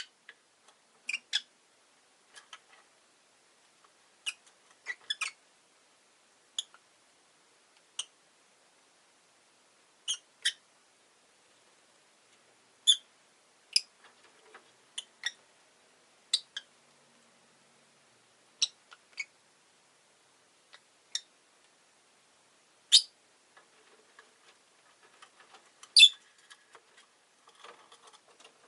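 Rosy-faced lovebird giving short, sharp, high chirps, single or in quick pairs, about one every second or two, with the loudest calls near the end.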